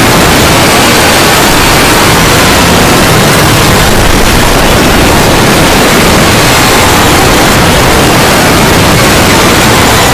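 Very loud, steady static-like noise with no tone or pitch to it, pushed to the top of the level, like an overdriven, distorted sound effect.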